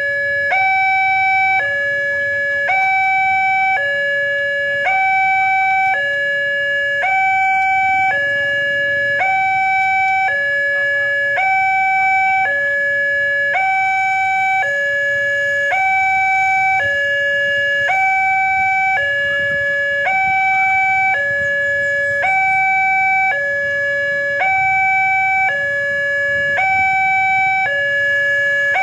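Railway level-crossing warning alarm from the horn loudspeaker on the crossing signal post: an electronic two-tone signal alternating high and low, about a second on each tone, repeating steadily. It sounds while the barrier is down and the lamps are red, the warning that a train is approaching.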